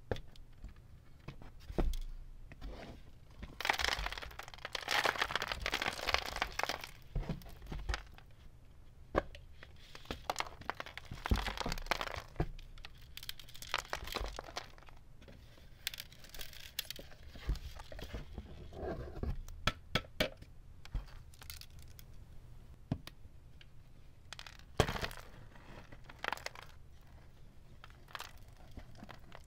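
Packed confetti and dust rustling and crinkling as it is dumped out of a clear plastic vacuum-cleaner dust bin into a cardboard box and pulled loose by hand, with small clicks and knocks of the plastic bin throughout. There is a sharp knock near the end.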